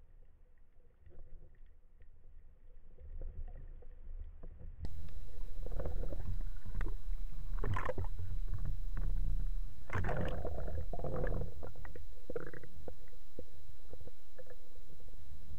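Muffled underwater rumble and rushing water noise picked up by a speargun-mounted camera. It is faint at first, turns much louder about five seconds in, and has two stronger rushing surges in the middle.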